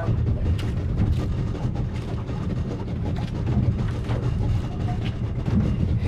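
A boat's engine running at idle, a steady low rumble, with scattered light knocks as a fish is landed at the side of the boat.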